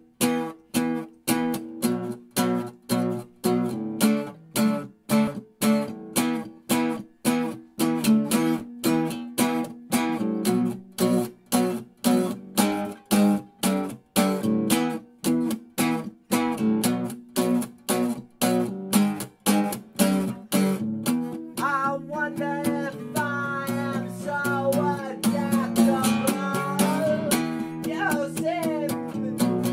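Acoustic guitar strummed in a steady rhythm, about two strums a second. About two-thirds of the way through, a wavering higher melody line comes in over the strumming.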